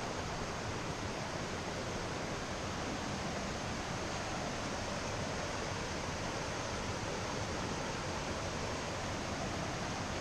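Steady rush of a waterfall and its whitewater, an even hiss with no breaks.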